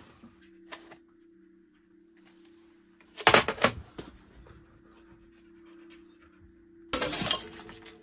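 A dog panting in two short bouts, about three seconds in and near the end.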